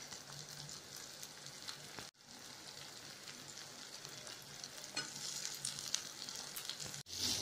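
Onion, tomato and green chilli sizzling quietly in oil in a steel kadai as mashed boiled potato is added, with a few faint clicks of the steel ladle against the pan.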